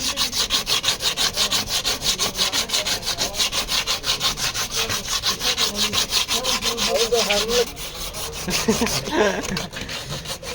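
Car bodywork being sanded by hand with rapid, even back-and-forth strokes, about seven a second, rasping and hissy; the strokes grow softer near the end.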